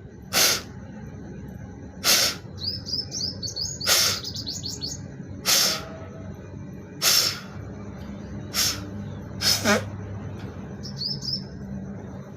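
Forceful blows of breath out through the nose after jal neti, clearing the remaining salt water from the nostrils: about seven sharp blows, roughly one every second and a half, the last one doubled. Birds chirp in the background.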